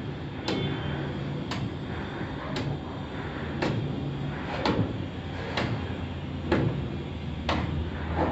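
Sharp clicks, evenly spaced about once a second, over a low hum that comes and goes.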